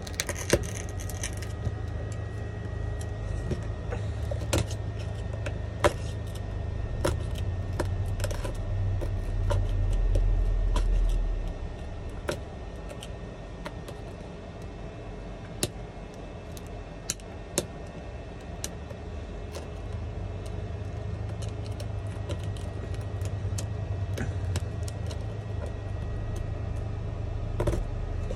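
Thin metal pick chipping and prying small shards of laser-loosened back glass off an iPhone 11 frame: irregular sharp clicks and ticks of glass breaking and scraping. A low rumble runs underneath, swelling about ten seconds in.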